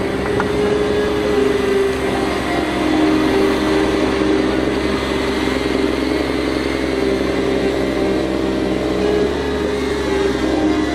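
Tracked snow groomer's engine running at steady revs as the machine drives past.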